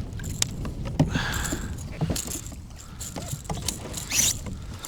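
Wind rumbling on the microphone in a kayak, with several sharp knocks against the boat and two short splashes, about a second in and near the end, as a largemouth bass is landed.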